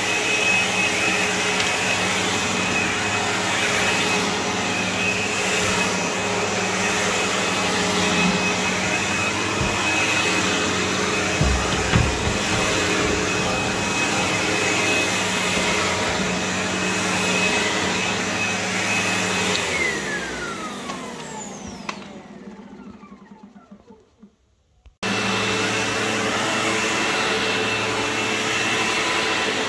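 Sebo X4 upright vacuum running steadily over carpet, with a few low knocks about twelve seconds in. About twenty seconds in the motor winds down with a falling whine to near silence, then the vacuum is running again abruptly some five seconds later.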